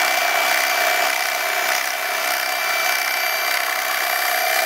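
Electric fillet knife running steadily, its motor whining with an even hum as the blades cut the flounder's flesh away along the bones.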